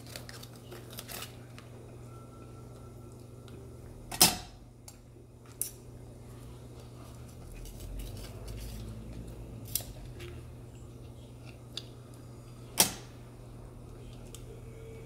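Metal tongs and kitchen scissors clinking against an earthenware hot pot and each other while seafood is cut up in the broth: a sharp, briefly ringing clink about four seconds in and another near the end, with a few fainter clicks between. A steady low hum runs underneath.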